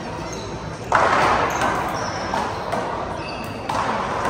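A handball struck and smacking off the wall of an indoor handball court, two sharp hits about a second in and near the end, each echoing through the hall. Short high sneaker squeaks on the court floor come in between.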